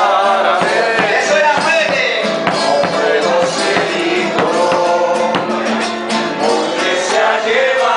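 A folk band playing a vals chilote, a Chiloé waltz, with sustained melody notes over a steady percussive beat.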